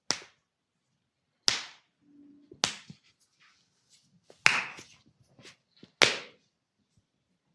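Percussive massage slaps: an open hand smacking the body five times, each a sharp, loud smack, spaced about one to one and a half seconds apart.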